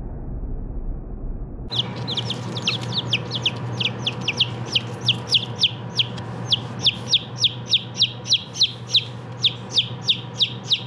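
Baby chicks cheeping: rapid, loud, high peeps, each falling in pitch, about three a second, starting suddenly about two seconds in. A steady low hum runs underneath.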